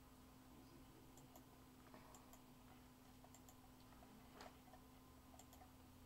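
Near silence: faint room tone with a steady low hum and a few scattered faint clicks.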